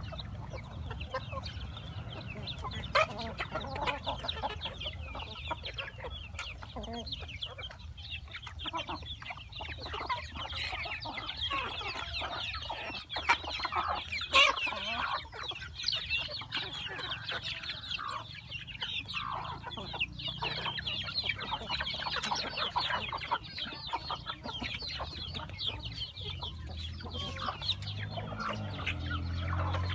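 A flock of chickens clucking as they feed, many short calls overlapping one another, over a low steady rumble.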